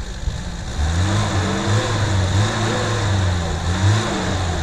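Lada Niva's engine revving repeatedly under load, its pitch rising and falling several times as the car strains to climb nose-up out of a muddy ditch.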